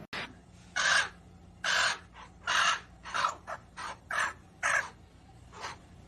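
A bird giving a series of about nine harsh, rasping calls, some long and some short, in quick succession.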